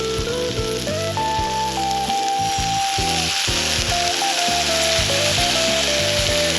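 Food sizzling in a hot pan, the sizzle growing louder a couple of seconds in, under background music with a melody and bass line.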